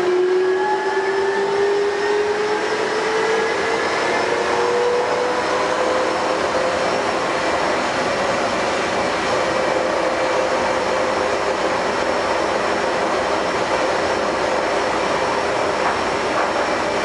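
Taipei Metro Wenhu line Bombardier rubber-tyred train running, with a steady rumble. Over it a motor whine rises in pitch for the first several seconds as the train picks up speed, then holds a steady pitch.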